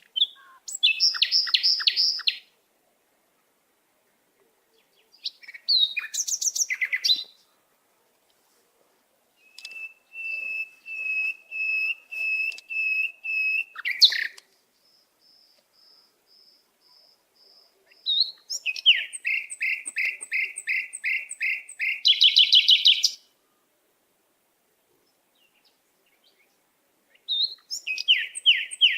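Songbird singing in separate phrases, each a run of quick, high repeated notes or trills, with pauses of a few seconds between phrases.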